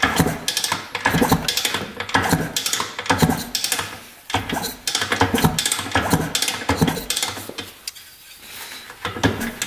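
1977 Suzuki RM125 two-stroke being kicked over by hand with its spark plug out, the kickstart and engine clanking through a stroke about once a second and quieter near the end. The compression it builds pushes past a thumb held over the plug hole, a sign the engine still has compression after sitting for years.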